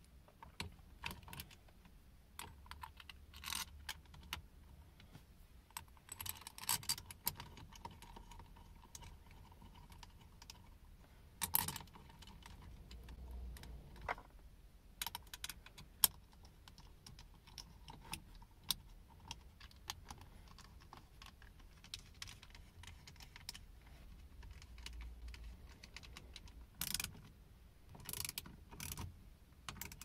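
Light clicks, taps and small metallic rattles from hands fitting parts and wiring on a Works Bell steering wheel hub, with a few sharper clacks.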